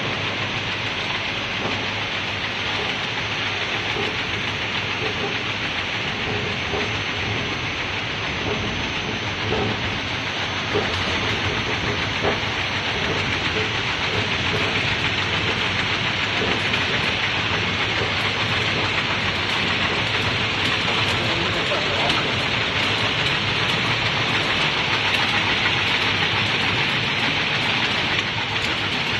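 Double-line electronic fruit grading machine running, its roller conveyor carrying small citrus fruit that roll and knock along the rollers. A steady, dense clatter with occasional sharper clicks.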